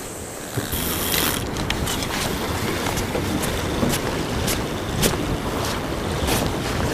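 Sea water lapping and splashing against a fishing boat's hull, with wind on the microphone; short irregular splashes come every half second or so.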